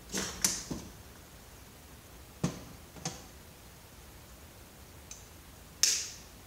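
Several sharp clinks and taps of tools and metal parts being handled while a CRT computer monitor is taken apart: a quick cluster at the start, two more a few seconds in, and the loudest, a bright clink that rings briefly, near the end.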